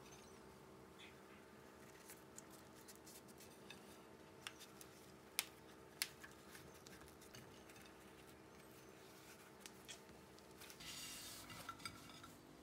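Quiet handling of a filled flour tortilla as it is folded into quarters on a plate: soft rustles and small clicks, with two sharper clicks a little past halfway and a brief rustle near the end. A faint steady hum sits underneath.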